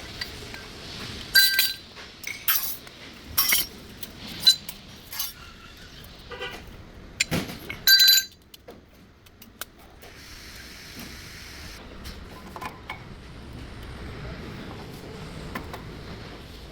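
Metal tools and brake parts clinking and knocking against each other, a run of sharp ringing clinks over the first half, loudest twice, then quieter handling noise.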